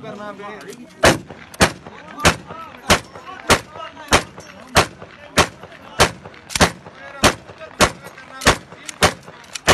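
AK-pattern rifle (AK-47/AKM) firing single shots at a steady pace, about one every 0.6 seconds, starting about a second in, some fifteen shots in all.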